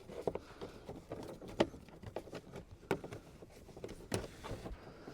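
Handling noise of a seatbelt being fed back through plastic interior trim: light rustling with scattered small clicks and knocks, the sharpest about one and a half, three and four seconds in.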